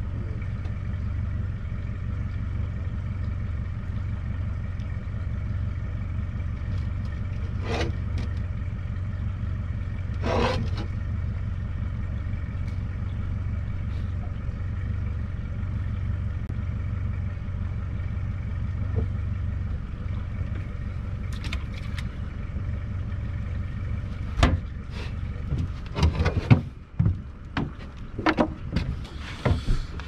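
Boat motor running steadily with a low hum, cutting off about 24 seconds in; a run of sharp knocks and clunks follows.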